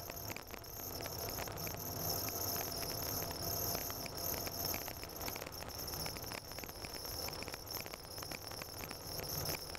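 Car driving on a snow-covered road, heard from inside the cabin: a low road rumble under dense crackling and ticking from the tyres on packed snow, with a steady high-pitched hiss over it.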